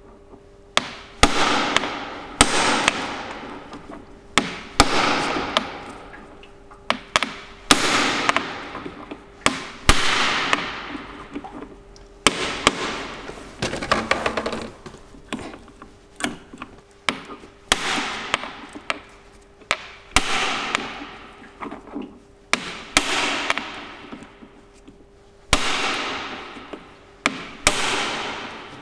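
Hammer blows on a manual impact driver with a 14 mm socket: about a dozen sharp metallic strikes, each ringing out and dying away over a second or so. It is being struck to break loose the threadlocked magneto rotor nut on a 154FMI moped engine.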